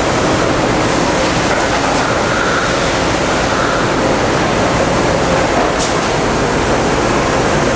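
Niederberger four-head vertical belt sander running: a loud, steady rush of noise with a faint hum underneath and a couple of light ticks.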